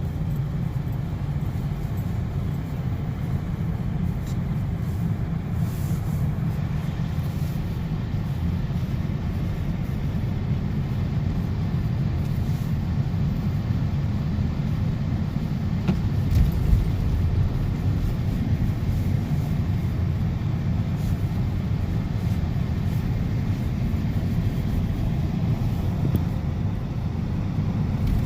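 Steady low rumble of a car's engine and tyres on a snowy road, heard from inside the cabin while driving, with one brief louder bump about halfway through.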